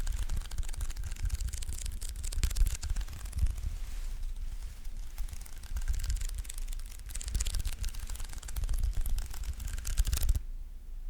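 Close-miked sticky sounds: fingertips pressing onto and peeling off a tacky surface, a dense run of small crackling clicks with soft low thumps from handling. It stops suddenly about ten seconds in.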